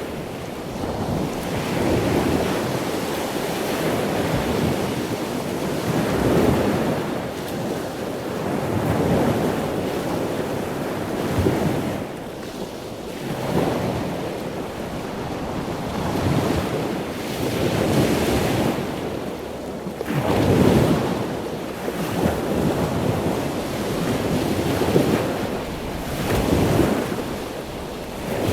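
Gulf surf breaking and washing up the beach, swelling and easing every few seconds, with wind buffeting the microphone.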